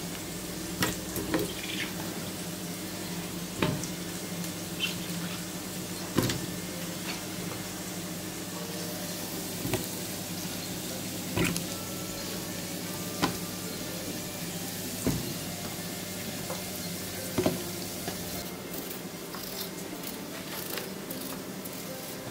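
Zucchini slices dropped one by one into a pot of chicken broth, each a short knock or plop, every couple of seconds over a steady hum. Near the end, a quicker run of small scraping clicks as a potato is peeled with a knife.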